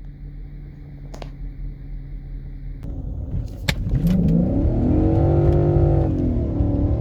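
BMW 540i's M62TU 4.4-litre V8 running steadily, then accelerating: the engine note climbs from about four seconds in, dips briefly as if at a gear change, and rises again. A few clicks come just before the climb.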